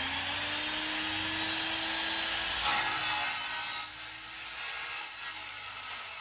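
Bosch circular saw with a carbide-tipped blade running at full speed, plunged slowly into an aluminium window frame's nailing fin. It runs with a steady whine at first, then gets louder and noisier about two and a half seconds in as the blade bites into the fin, and keeps cutting.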